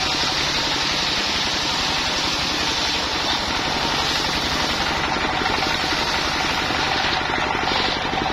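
Single-cylinder stationary diesel engine powering a homemade circular sawmill, running steadily with a rapid, even beat.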